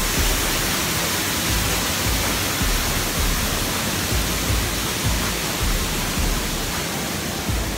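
Steady rushing of Wahclella Falls, a large waterfall, heard up close, with irregular low rumbling bumps underneath.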